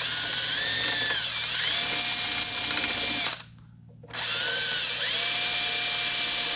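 Electric drill running in two runs with a short stop about three and a half seconds in, its pitch dipping and recovering as the bit is pushed into the wood. The drill bit is cutting a slot along the back of a wooden board for hanging it on a screw.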